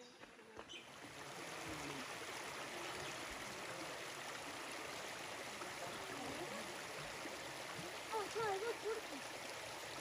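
A shallow rainforest creek rippling over mossy stones: a steady rush of running water that fades up over the first second or two. A short warbling call sounds near the end.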